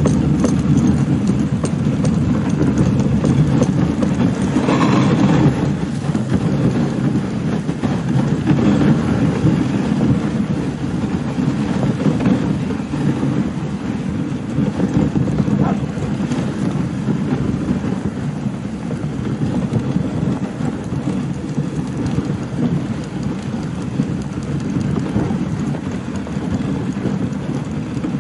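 Dog sled runners sliding over packed snow: a steady rumbling hiss with fine rattling from the moving sled as the Siberian huskies pull it along.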